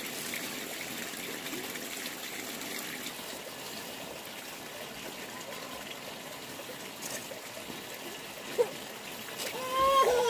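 Running water trickling steadily. Near the end a high-pitched voice calls out briefly.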